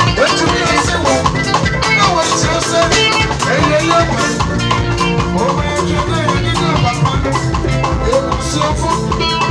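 Live amplified band music: electric guitar playing over a drum kit and a hand drum, with a steady beat.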